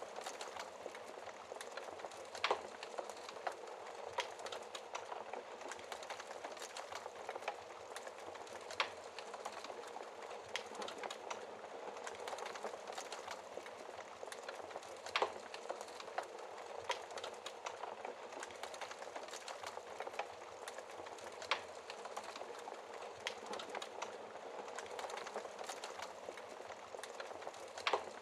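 Wood fire crackling in a fireplace: a steady hiss of small crackles with a louder pop about every six seconds.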